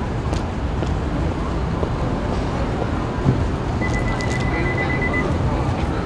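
City street ambience: a steady low rumble of traffic, with one short thump about three seconds in and a thin, steady high tone lasting about a second and a half near the end.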